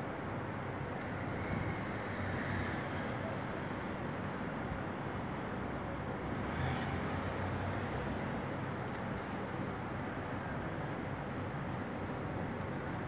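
Steady rumble of distant city traffic, a continuous even hum with small swells.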